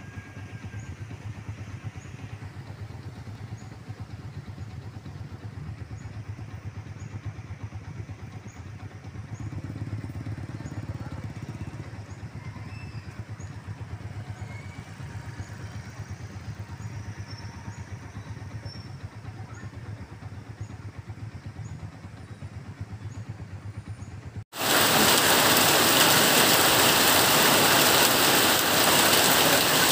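Slow traffic of many motorcycles and cars: a steady low hum of idling and crawling engines. About 24 seconds in it cuts suddenly to heavy rain pouring down, a much louder, even hiss.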